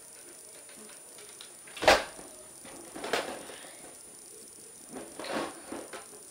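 Handling noises: one sharp knock about two seconds in, then softer knocks and rustles around three and five seconds.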